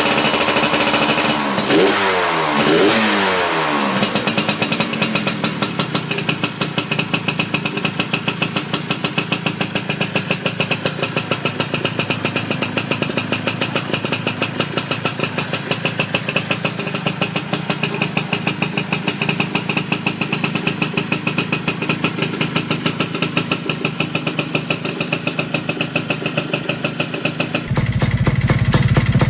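Yamaha F1ZR's two-stroke engine running through a Creampie aftermarket exhaust: blipped a couple of times in the first few seconds, then settling to a steady, rapid idle beat. Near the end it cuts to another motorbike with a different exhaust idling, deeper and a little louder.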